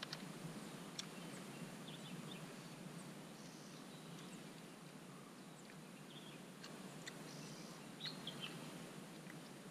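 Faint outdoor riverside ambience: a steady low rush, with scattered short bird chirps and a few light clicks.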